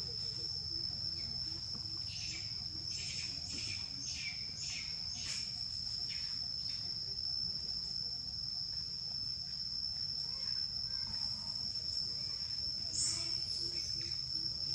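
Steady, high-pitched insect drone on one unbroken tone, over a low, even background rumble. A quick run of short, sharp chirps, about two a second, comes a couple of seconds in, and one more call near the end.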